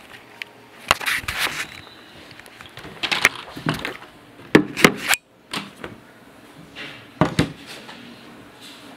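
Irregular sharp knocks and bumps, several in quick pairs, with a short break in the sound a little past halfway.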